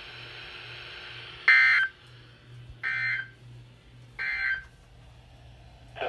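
Three short screechy bursts of SAME digital data from a NOAA Weather Radio broadcast, each about a third of a second long and a little over a second apart: the end-of-message code that closes the required weekly test. They come through a weather radio's speaker over a low steady hum.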